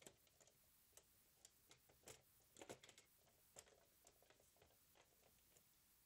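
Faint, irregular clicks and light knocks of a PlayStation 5's plastic casing and chassis being handled and pressed into place, about a dozen small impacts with the loudest cluster near the middle.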